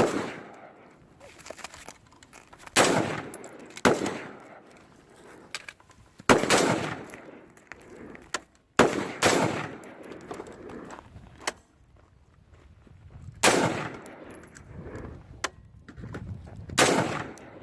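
Rifle firing single shots, about seven loud ones spaced a few seconds apart, with fainter shots between: slow aimed fire while zeroing a red dot sight.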